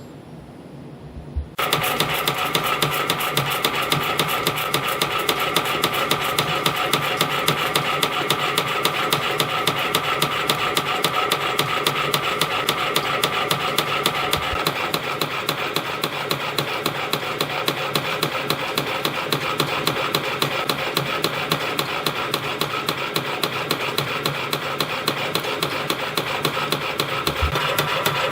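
CNC spring coiling machine coiling 0.4 mm wire into multiple-pitch compression springs. It starts abruptly about a second and a half in after a few faint clicks, then runs with a rapid, even clatter over a steady hum.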